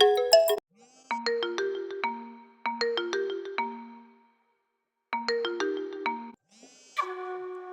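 vivo V27 phone ringtones: one tune cuts off about half a second in, then a short melody of quick, fading notes plays and repeats with brief pauses, and a new ringtone with a held chord starts near the end.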